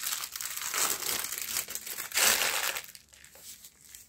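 Clear plastic packaging bag crinkling and rustling as a white fabric softbox diffuser cloth is taken out of it, loudest a little past two seconds in, then dying down about three seconds in.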